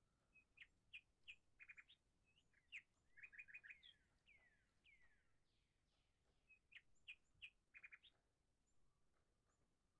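Faint songbirds chirping: short high chirps, quick trills and a few downward-sliding whistles, with a similar run of chirps and a trill coming again about six seconds later.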